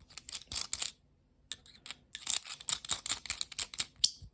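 CountyComm metal pen's mechanism clicked over and over: a quick cluster of sharp clicks, a single click, then a longer rapid run of clicks.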